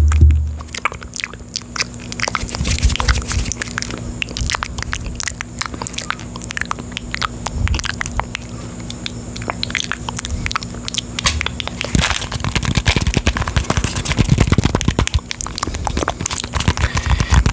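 Fingertips tapping and scratching on the metal mesh grille of a Blue Yeti condenser microphone at very close range: a rapid, irregular stream of crisp clicks and scrapes. Toward the end, a hollow red plastic object is tapped and handled against the mic, adding duller knocks.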